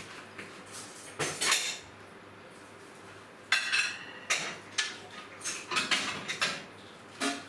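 Dishes and cutlery clattering as they are handled: a short clatter about a second in, then a run of clinks and knocks from about three and a half seconds in to near the end.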